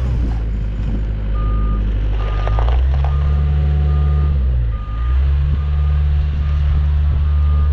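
Yanmar B55W-2 wheeled excavator's diesel engine running under way, with its travel alarm beeping steadily at about one beep a second from about a second in. The engine note dips briefly about five seconds in and picks up again.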